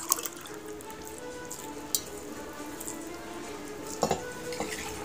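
Soft background music over close eating sounds: fingers mixing and squishing rice on steel plates, with sharp clicks against the plates at the start, about two seconds in and about four seconds in.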